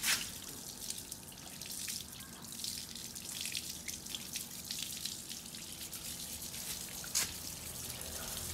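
Water from a garden hose splashing and dripping off a motorcycle chain and sprocket as it is rinsed clean after scrubbing. Two brief sharper knocks stand out, one at the very start and one about seven seconds in.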